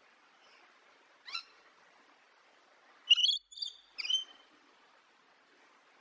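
Rainbow lorikeet calling: one short call about a second in, then a quick run of loud, sharp calls between about three and four seconds in, over a faint steady hiss.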